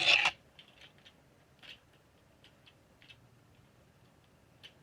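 A brief rustle of handling at the start, then a few faint, scattered light clicks, as of plastic LEGO parts being handled.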